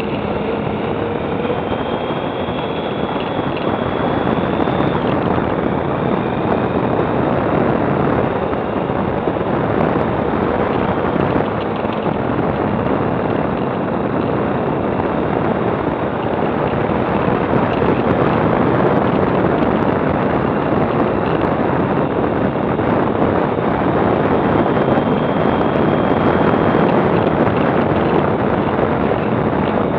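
Motorcycle riding at road speed, heard from a bike-mounted camera: steady wind rush buffeting the microphone over the engine, slowly getting a little louder.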